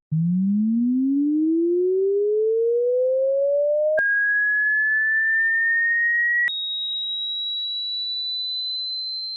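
An electronic sine-wave test tone of the kind used in a hearing test. It glides steadily upward from a low hum to a middle pitch over about four seconds, then jumps to a higher whistle that rises slightly, and then jumps again to a high, thin whine that creeps a little higher.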